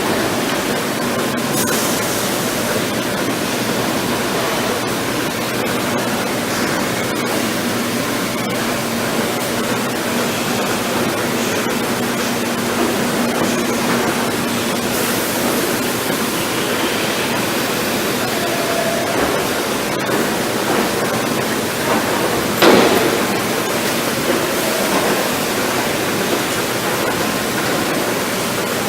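Steady rushing noise of dairy barn machinery, with one short loud knock about three-quarters of the way through.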